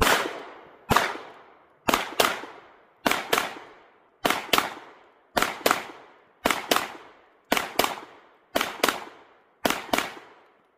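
Springfield Armory Echelon 9mm pistol firing a string of 18 shots: two single shots, then eight quick double-taps about a second apart, each sharp report fading briefly.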